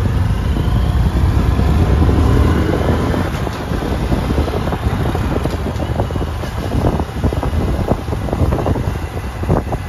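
Small motorcycle running steadily along a road, a low engine rumble mixed with wind buffeting and flapping on the microphone, gustier in the second half.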